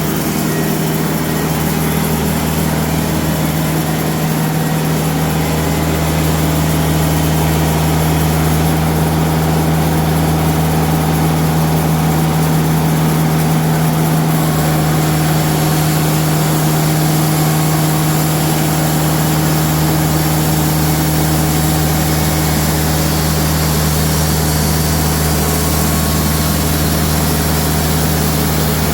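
Diesel engine of a TimberKing bandsaw sawmill running steadily, a constant deep hum with only small shifts in tone about six and fifteen seconds in.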